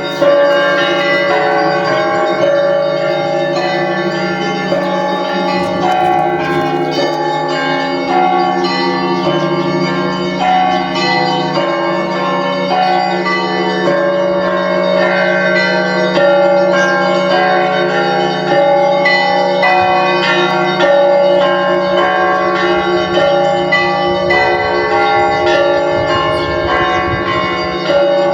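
Russian Orthodox church bells rung together in a continuous peal: many bells of different pitches struck in quick, overlapping patterns over a steady low hum from a deeper bell.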